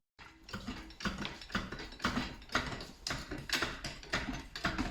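Hand ratchet wrench clicking in repeated strokes, about two a second.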